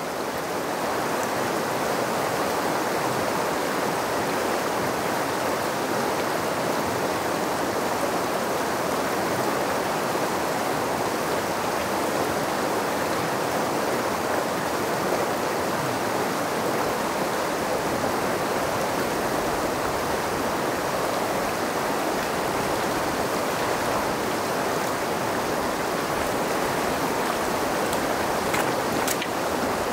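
Steady rush of a shallow, rocky river running over riffles, with a few light clicks near the end.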